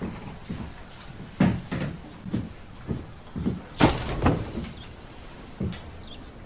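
A series of separate knocks and thumps at uneven intervals, like things being handled or a door or cupboard being moved; the loudest comes about four seconds in.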